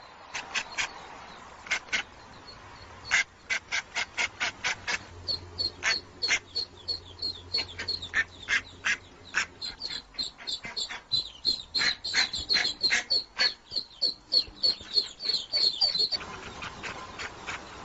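Hen mallard quacking loudly and over and over, about two or three quacks a second. From about a third of the way in, a fast run of high ducklings' peeps joins the quacks and cuts off suddenly near the end.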